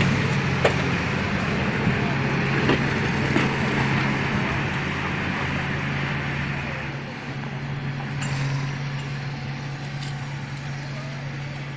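A heavy vehicle's engine running steadily, with a few sharp knocks in the first half; about seven seconds in the deep rumble drops away and the sound gets quieter.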